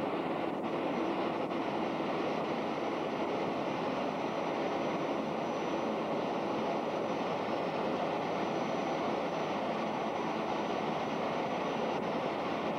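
Steady rushing noise of a parked Fokker 100 jet airliner, with a faint high whine held at one pitch.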